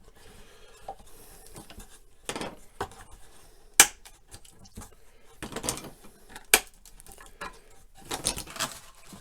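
Clamps being released and pulled off a glued wooden drawer: a series of sharp clicks and clattering knocks, the loudest a single snap about four seconds in.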